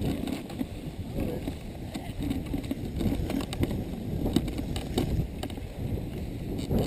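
Wind rumbling on an outdoor action-camera microphone, an uneven low buffeting, with a few scattered clicks.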